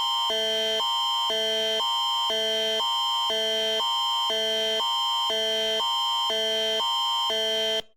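Canadian Alerting Attention Signal, the electronic attention tone of an Alert Ready emergency broadcast. A steady high tone sounds over lower tones that switch pitch every half second, for about eight seconds, and then it cuts off sharply near the end.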